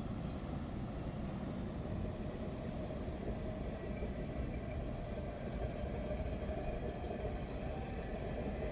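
Steady vehicle rumble, an even low noise that does not change.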